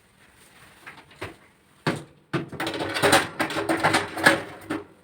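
Metal baking tray being put into an oven: a knock, then a few seconds of scraping and clattering of metal on the oven rack.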